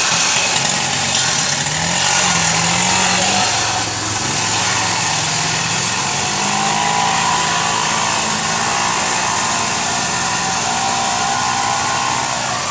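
Small vehicle engine running steadily while wading through floodwater, with a constant hiss of water swishing around the wheels.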